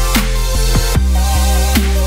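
Electronic outro music with a heavy bass line and a steady drum beat.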